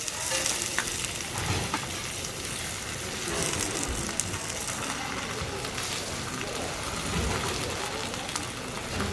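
Korean buckwheat pancakes frying in oil on a hot griddle: a steady sizzle with a few short ticks.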